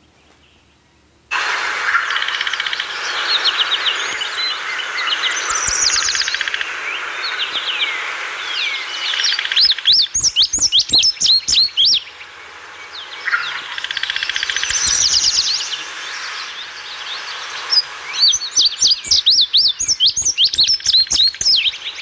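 Small songbirds singing: high, rapid trills and chirps that start about a second in, with louder runs of quick sweeping notes about halfway through and again near the end.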